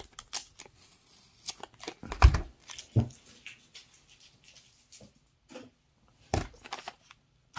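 Clear tape being peeled off a square plastic coin tube, with crackling and rustling, and a few knocks, the loudest a thump about two seconds in.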